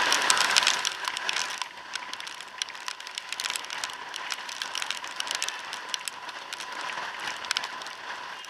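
Rain and riding noise picked up by a microphone inside a motorcycle helmet on a slow-moving scooter: a steady hiss with irregular sharp ticks of raindrops striking, and a faint steady high tone underneath.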